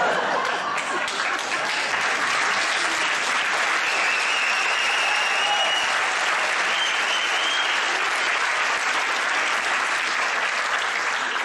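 Theatre audience applauding steadily, a dense, even clapping.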